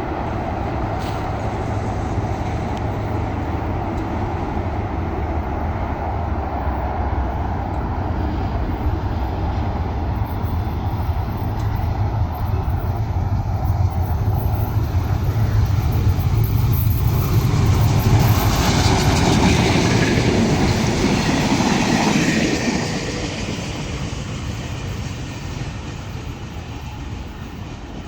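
A train running past: a steady rumble that grows louder, is loudest about two-thirds of the way through, then fades.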